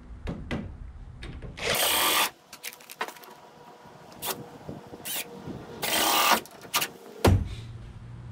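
Cordless drill driving screws through weather strip into the shed's door framing, in two longer runs about two seconds and six seconds in, with short bursts and knocks between them and a sharp thump near the end.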